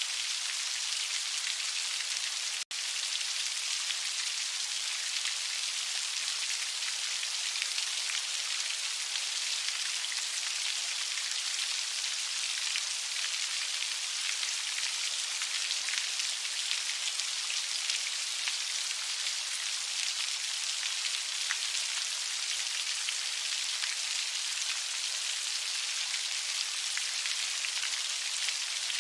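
Heavy rain falling steadily: an even hiss of many drops, with a split-second dropout about three seconds in.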